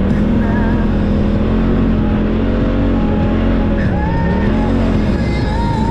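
Side-by-side UTV engine running under throttle while driving over loose sand, its pitch rising and falling several times as the throttle is worked, over a steady low rumble.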